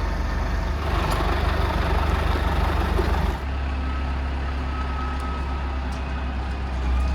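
Heavy vehicle engine running steadily with a low hum. The sound changes abruptly a little over three seconds in.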